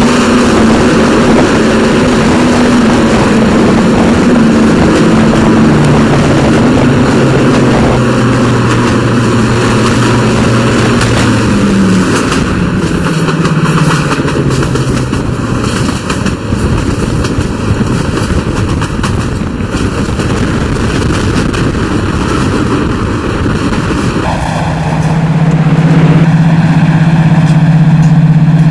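Class 55 Deltic locomotive's twin Napier Deltic two-stroke engines running hard, a loud steady drone heard close up from the train. The engine note drops and eases about twelve seconds in, then comes back stronger and louder near the end.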